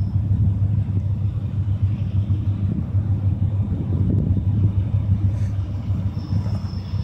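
Diesel locomotives of an approaching CSX freight train, heard as a steady low rumble. A faint high whine comes in near the end.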